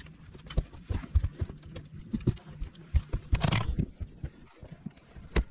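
Irregular knocks and thumps of handling and movement on a fishing boat's deck, with a short rustling scrape about three and a half seconds in and a sharp knock near the end.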